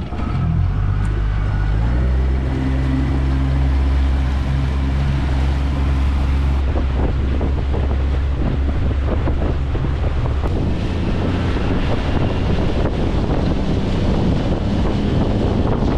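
A small boat's outboard motor revs up as the boat gets under way, its pitch rising over the first couple of seconds, then runs steadily at cruising speed. From about halfway through, wind buffeting the microphone and a rough rushing noise take over.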